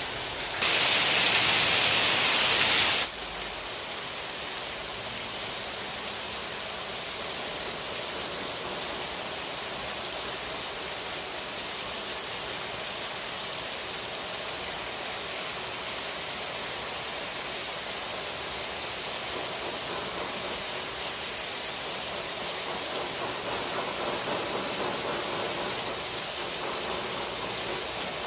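Gas torch flame hissing steadily as it heats a silver ring for soldering. About a second in, a much louder rushing hiss lasts for about two seconds, then stops suddenly.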